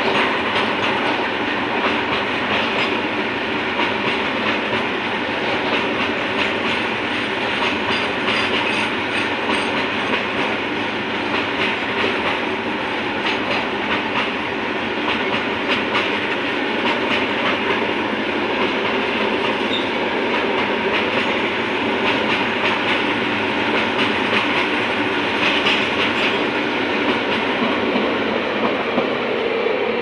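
Steady running noise of a moving train: wheels rolling and clattering over the rail joints, heard from a passenger coach as a long freight train of covered box wagons passes alongside on the next track.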